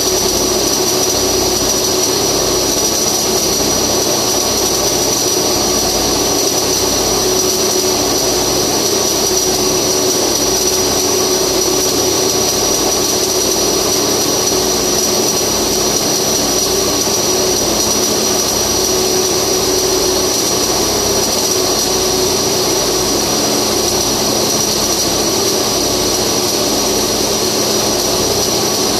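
Flux-cored arc welding: the arc's steady hiss and crackle runs on without a break, over a steady high-pitched whine and hum of machinery.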